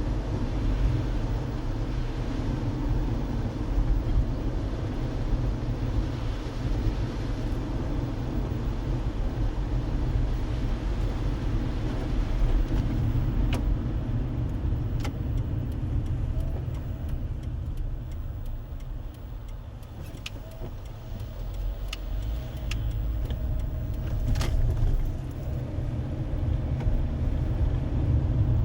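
Car driving on the road, heard from inside the cabin: a steady low rumble of tyres and engine that eases off for a few seconds midway. Several light, sharp clicks come through in the second half.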